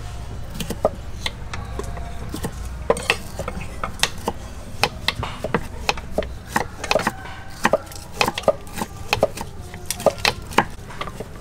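Kitchen knives cutting garlic and bell peppers on wooden cutting boards: irregular knocks of blades on wood from several boards at once, coming quicker in the second half.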